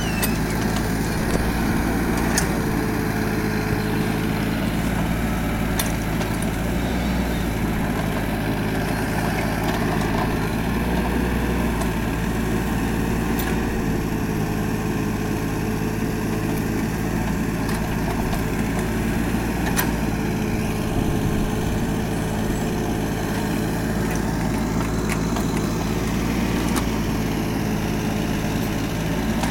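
Mini excavator's engine running steadily, with a faint wavering whine above it and a few sharp knocks scattered through, as the machine digs and pries at hard lateritic soil.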